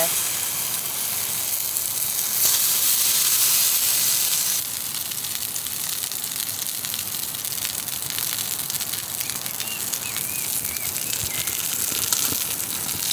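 Beef burger patties sizzling in a hot metal frying pan over a campfire, a steady hiss that is louder right at the start and again for about two seconds from around two and a half seconds in.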